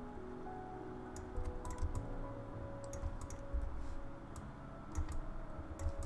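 Scattered computer mouse and keyboard clicks over background music of held, slowly changing notes.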